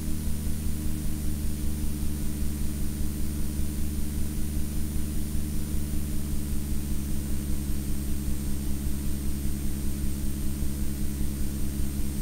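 Steady low mechanical hum with an even throb of about six pulses a second, and a faint high whine above it.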